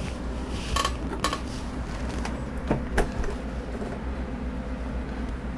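A few light clicks and knocks, about five spread over the first three seconds, from objects being handled out of shot, over a steady low hum.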